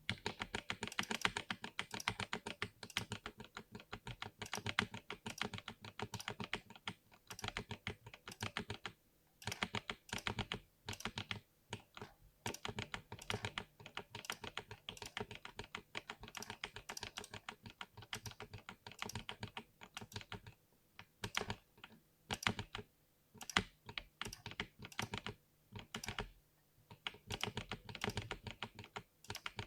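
Typing on a mechanical keyboard with lubed switches: quick runs of keystroke clacks broken by short pauses.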